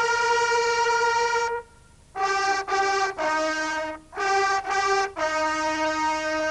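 A brass fanfare on trumpets: a long held note, a brief pause, then a run of shorter notes that ends on a long held note.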